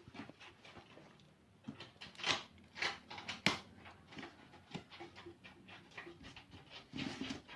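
Unpacking noise from handling speaker boxes and packaging: irregular rustling and scraping, with a sharp knock about three and a half seconds in.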